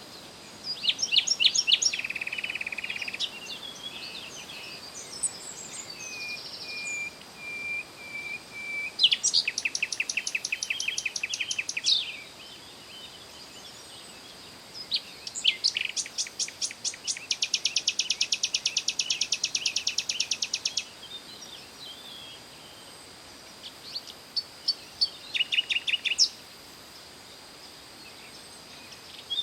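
Songbirds singing in bursts: bright chirps and fast, even trills of rapidly repeated notes, alternating with short pauses. A faint steady high-pitched tone runs underneath.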